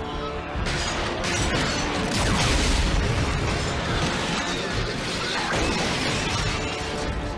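Cartoon battle sound effects: repeated booms and crashing metal impacts over a dramatic background score.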